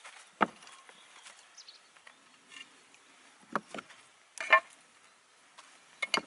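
Broken terracotta roof tiles being set down and stacked on one another, giving a handful of sharp clay knocks and clinks, the loudest about four and a half seconds in.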